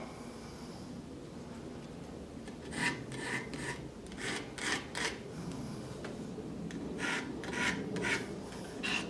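A hand rubbing over a solid hardwood block. The sound is quiet and starts about three seconds in, as about ten short scraping strokes in small clusters.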